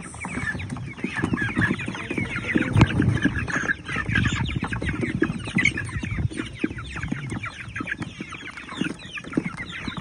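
A flock of six-week-old chickens calling constantly, many short, high, falling peeps overlapping. There is a louder low bump about three seconds in.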